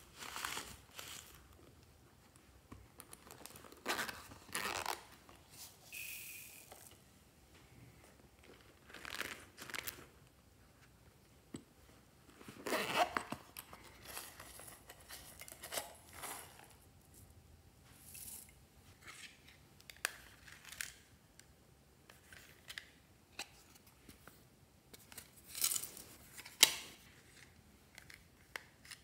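A series of short handling noises: zippers on silicone coin purses being opened and craft add-ins such as foam beads and glitter shapes being tipped into glass dishes. The noises come a second or two apart with quiet between, the loudest a little under halfway through.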